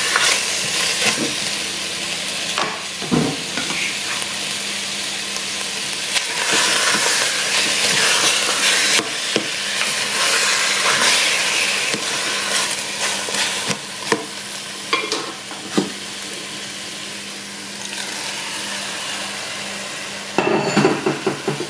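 Chicken thigh pieces and sliced onions sizzling in a stainless-steel Saladmaster pan, frying in the chicken's own fat with no oil, while a spatula stirs and scrapes against the pan. A run of louder knocks and scrapes comes near the end.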